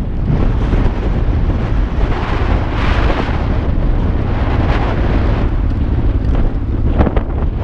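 Honda Transalp's V-twin engine running as the motorcycle rides over rough, salt-crusted ground, with heavy wind buffeting on the bike-mounted microphone. A couple of sharp knocks about seven seconds in.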